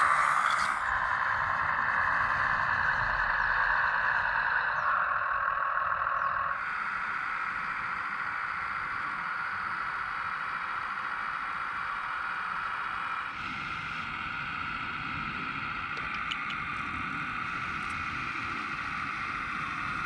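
Steady whine of small electric motors and gearing in RC construction models: the Kubota U17 mini excavator's track drives and hydraulic pump working as it is driven onto a model flatbed truck. The whine changes pitch about six seconds in and again about thirteen seconds in.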